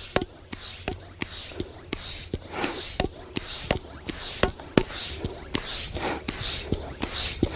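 Hand stick pump inflating an inflatable stand-up paddleboard: a steady run of pump strokes, each a hiss of air with sharp clicks from the pump. The board is near full size and pressure is just beginning to build, so the strokes are meeting resistance.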